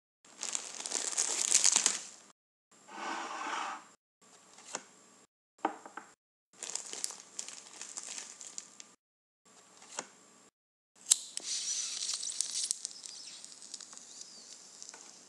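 Short bursts of crinkling and rustling, with silent gaps between them, as dried cannabis is broken up and packed into a pipe bowl. About eleven seconds in a lighter clicks, then a hiss fades out as the bowl is lit.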